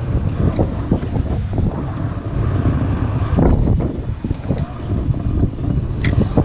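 Wind buffeting the microphone on a boat at sea: a heavy, uneven low rumble with a noisy hiss above it and a few short knocks.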